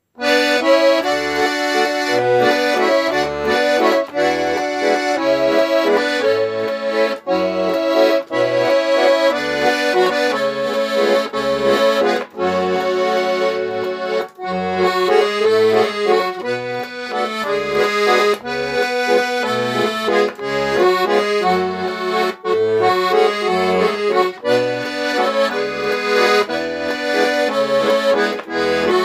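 Russian garmon (button accordion) playing the tune of a Russian song with chords, over a regular bass-and-chord accompaniment from the left-hand buttons; instrumental only, no voice.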